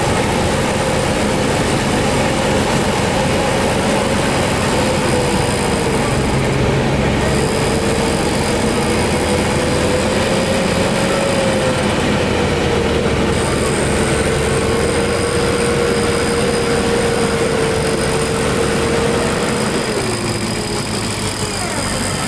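Electric winch on the front of a mud-covered off-road 4x4 whining under load as it hauls the vehicle up a muddy slope, over the vehicle's running engine. The whine holds a steady pitch that wavers slightly, then drops and trails off near the end.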